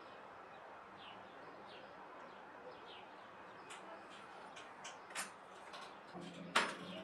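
Quiet room tone with faint, short bird chirps. Toward the end come a few light handling clicks, then one sharp knock as a steel ruler is laid on the paper over the cutting mat.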